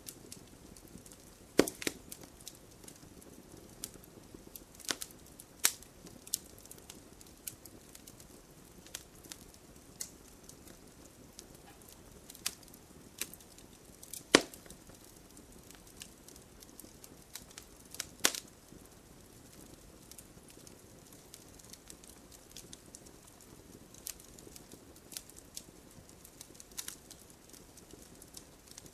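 Wood fire crackling: a soft steady hiss under irregular sharp pops and snaps, a few louder cracks among them.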